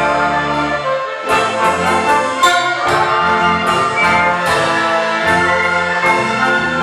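Symphony orchestra playing, with held chords under a pulse of sharp accented attacks.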